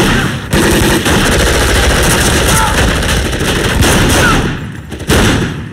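Heavy gunfire from automatic weapons and handguns, a dense run of rapid shots that thins out about four and a half seconds in, with one more loud shot or burst shortly before the end.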